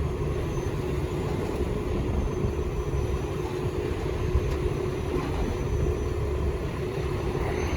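Heavy diesel truck engines running steadily: a low rumble with a steady hum over it.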